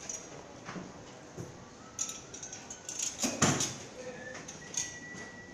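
Metal clinks and knocks from a chrome wire shelving rack's poles and wire shelves being handled during assembly, with the loudest knock about three and a half seconds in.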